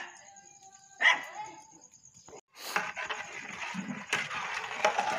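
Two short, loud calls about a second apart. Then a long metal ladle scrapes and swishes steadily through sugar and water in a large metal cooking pot, stirring the sugar in to dissolve it for syrup.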